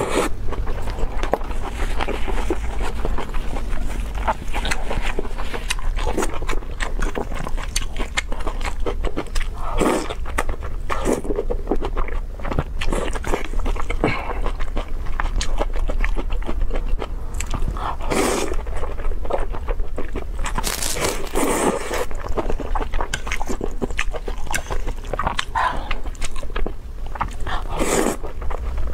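Close-miked eating of saucy stir-fried noodles: continuous wet chewing and clicky mouth smacks, with several louder slurps of noodle strands spread through, over a steady low hum.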